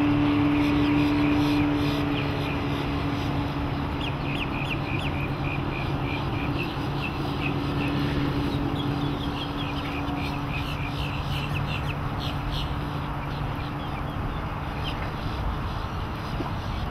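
Mercury 125 HP outboard motor running steadily. Its hum drops in level about two seconds in and carries on quieter. From about four seconds in, birds call with many short, quick chirps over it.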